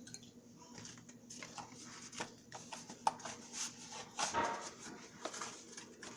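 Hand coffee mill grinding coffee beans: irregular clicks and crunches as the beans are broken.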